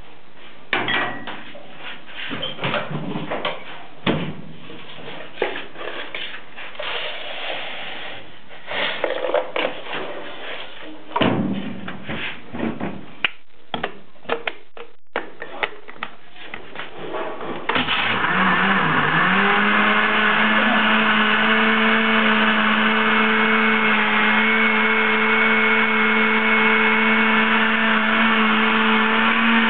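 Scattered knocks and clicks of handling at a countertop blender jar. About two-thirds of the way in, the electric blender motor starts, rises in pitch and settles into a steady whine as it blends the strawberries, milk and sugar.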